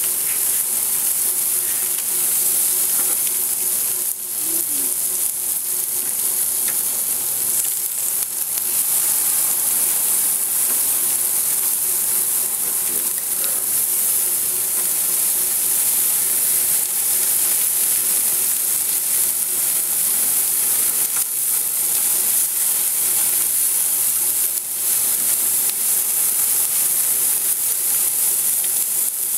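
Vegetables sizzling and frying in a stainless-steel grill wok over open barbecue flames, stirred now and then with metal tongs. A steady, loud hiss with no break.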